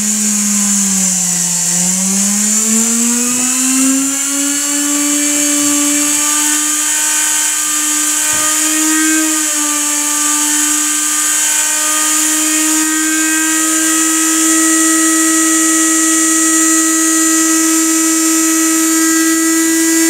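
Reed-switch-triggered mini window pulse motor spinning at high speed, about 17,000 RPM, with a steady high whine. The pitch sags briefly about a second in, climbs over the next several seconds and then holds steady.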